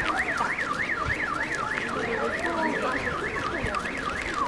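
Car alarm sounding a fast warbling siren, its pitch sweeping up and down about four times a second.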